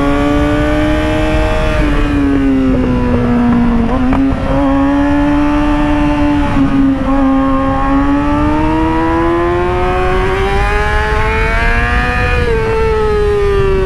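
Yamaha YZF-R6 inline-four engine running at high revs while cornering. Its pitch dips slightly, climbs steadily for a few seconds, then drops back near the end, with wind noise on the microphone underneath.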